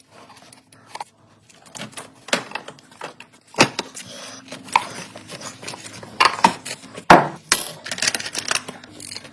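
Metal hand tools clinking and knocking irregularly against engine parts, with sharp metallic clicks and clatter, the loudest knocks about a third and three quarters of the way through.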